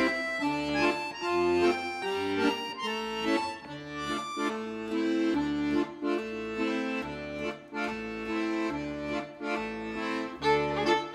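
Instrumental background music with a lively melody over a steady, repeating bass rhythm.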